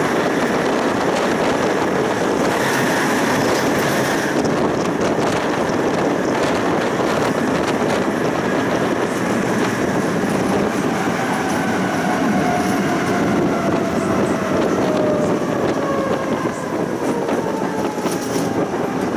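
Tram running along its track: a steady, loud rumble and rattle of wheels on rails. A thin whine falls slowly in pitch through the second half.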